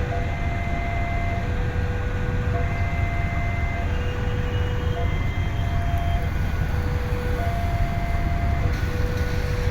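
Diesel-electric locomotive and its train of coaches rumbling steadily as the train pulls out. An electronic warning signal sounds over it, switching between a higher and a lower tone about every second and a quarter.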